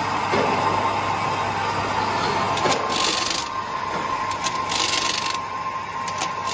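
Shrink sleeve labeling machine for 5-gallon water bottle caps running, with a steady mechanical hum and whine. Short hisses with sharp clicks come about every two seconds.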